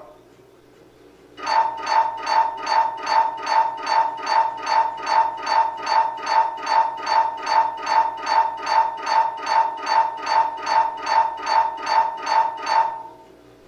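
MRI scanner running a scan sequence: its gradient coils pulse in a loud, steady, rhythmic tonal beeping, about two and a half pulses a second. It starts about a second and a half in and stops shortly before the end, over a faint steady hum.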